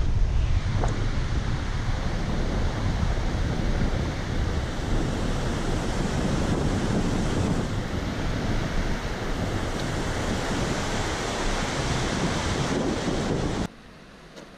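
Rushing of a fast, silty glacier-fed river below a suspension bridge, mixed with wind buffeting the microphone; a steady loud rush that cuts off suddenly near the end.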